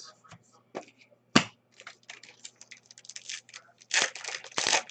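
Trading card pack wrapper being crinkled and torn open, with cards handled: a sharp snap about a second and a half in, then a run of crackling that is loudest near the end.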